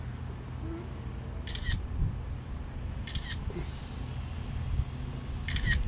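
A camera shutter fires three times, at roughly one-and-a-half-second intervals, each a short burst of high clicks.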